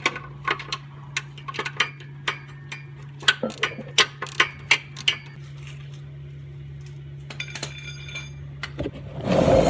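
Irregular metallic clicks and clinks of hand tools against steel under a car, over a steady low hum, with a louder rush of noise near the end.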